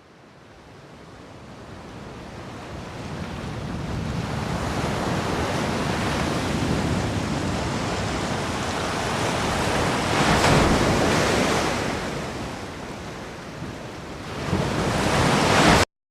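Sea surf rushing, fading in from nothing and swelling to a peak about ten seconds in, then swelling again near the end before cutting off abruptly.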